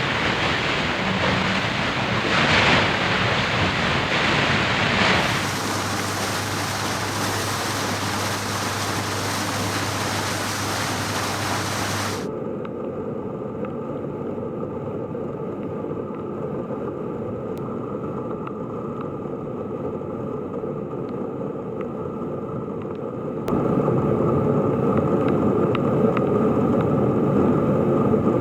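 Rushing floodwater and rain with wind on the microphone, in several outdoor recordings that cut abruptly from one to the next. A steady low hum runs under the second recording.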